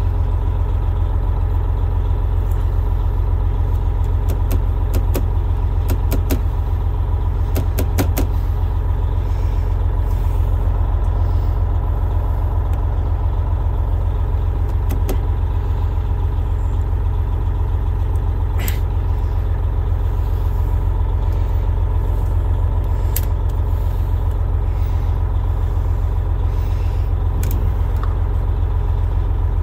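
Freightliner Coronado truck's diesel engine idling, a steady low rumble, with a few scattered sharp clicks and knocks from prying at a stuck dashboard wiper switch.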